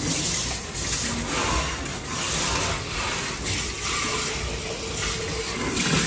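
Kitchen faucet sprayer running water into a plastic pitcher being rinsed out in the sink: a steady rush of water.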